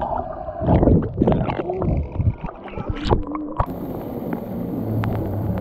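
Muffled underwater bubbling and sloshing in a wave pool, heard through a submerged waterproof camera. About three and a half seconds in, the camera comes up out of the water and the sound turns into a steady splashing of water from fountain jets in the pool.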